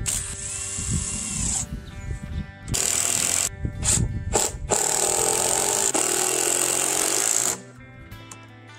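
Cordless drill driving screws into pine boards in several bursts: a short run that spins up and down, two brief ones, then a longer run of about three seconds that stops near the end. Background music plays underneath.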